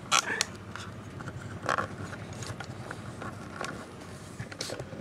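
Close rustling and short scrapes of a cat's fur rubbing against skin and the microphone as it is handled, with a few brief scrapes near the start, a little under two seconds in, and near the end.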